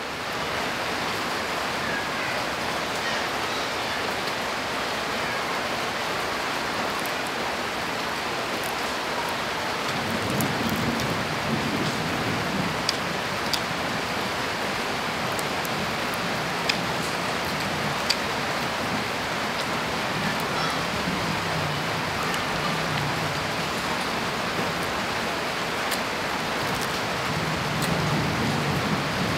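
Steady, continuous rainfall, an even hiss of rain coming down, with a few brief sharp ticks now and then.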